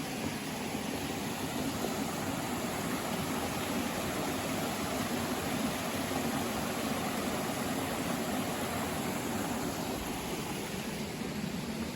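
Steady rushing of flowing water from a mountain stream, an even hiss with a low rumble that swells slightly in the middle.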